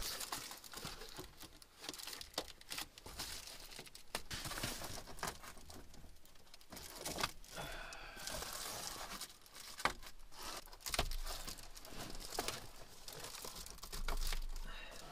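Crinkling and rustling of window covers being handled and pressed into the rear windows of an SUV, with scattered small knocks and the rustle of bedding and clothing.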